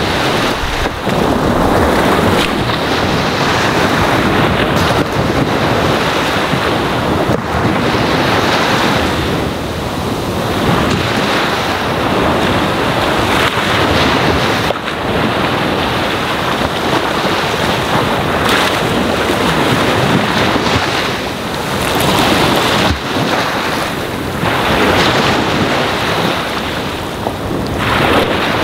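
Ocean surf washing onto a sandy shore: a continuous rush of breaking waves that swells and eases every few seconds.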